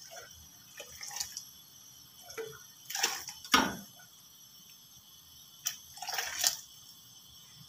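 Water poured from a small stainless-steel pot into a wide pan of hot water, rinsing the last soaked rice out of the pot, in two short splashing pours about three seconds apart, the first louder. A few faint knocks come before them.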